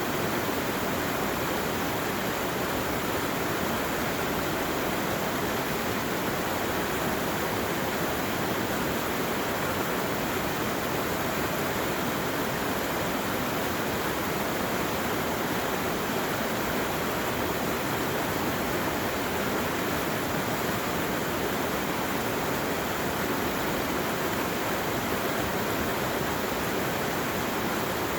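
Steady, unbroken rushing of running water, with no single splashes or changes standing out.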